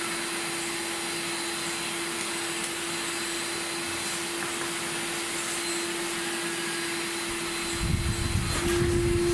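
Shop vacuum running steadily with a constant whine and airflow hiss. Near the end a low rumble comes in and the motor's whine steps slightly higher in pitch.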